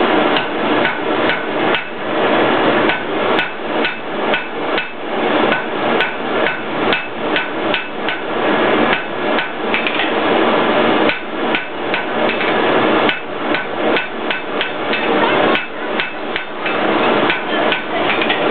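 Blacksmith's hand hammer striking hot iron on an anvil in a steady run of ringing blows, pausing briefly about halfway through before the hammering resumes.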